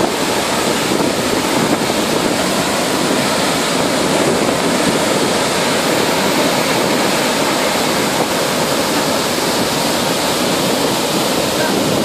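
Athirapally Falls, a large waterfall in heavy flow: a loud, steady rush of falling water.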